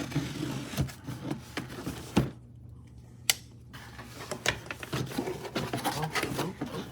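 Cardboard box being opened and handled by hand: rustling and scraping of the packaging, with a few sharp clicks and knocks, the loudest about two and three seconds in.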